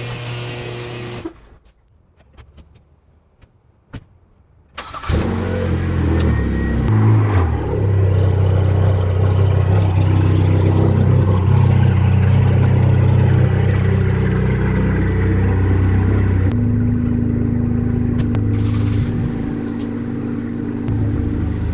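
Nissan 240SX's four-cylinder engine starting after a few clicks about five seconds in, then running steadily with its note shifting a few times.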